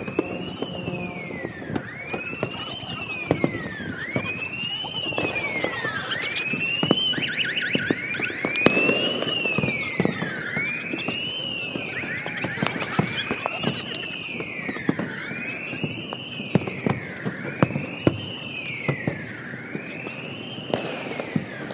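Distant fireworks crackling and popping, with sharp bangs, over a siren tone that wails up and down about every two seconds.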